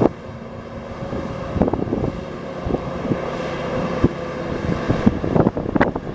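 Cummins 10-litre inline-six diesel of a 1991 Ford LT9000 mixer truck running steadily, with wind gusting on the microphone and a few scattered knocks.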